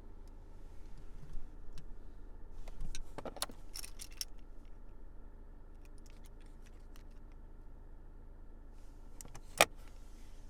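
Keys jangling and scattered light clicks, with a cluster of jingling about three to four seconds in and one sharp click near the end.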